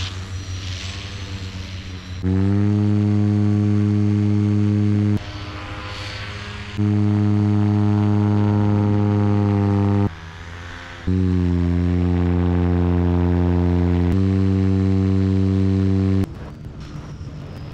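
Paramotor engine and propeller running at a steady, even pitch, heard up close from the frame. The loud drone comes in stretches of about three seconds, broken by short spells of quieter wind hiss.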